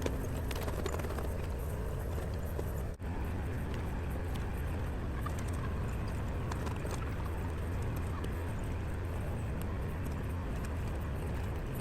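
Kubota L2501 compact tractor's three-cylinder diesel engine running steadily under a low rumble, with faint scattered clicks and a brief dropout about three seconds in.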